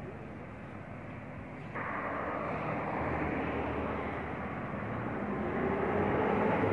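Road traffic going by: a steady rush of passing vehicles that steps up in level about two seconds in and grows louder toward the end.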